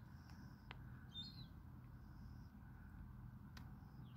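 Faint bird calls: a quick high twittering call about a second in, and thin whistled notes before and after it, over low steady background noise.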